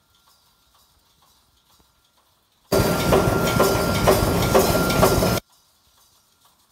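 Pneumatic wire mesh welding machine for poultry cages running, a dense mechanical clatter with regular welding strokes about twice a second. It starts abruptly about three seconds in and cuts off abruptly near the end, with near silence before and after.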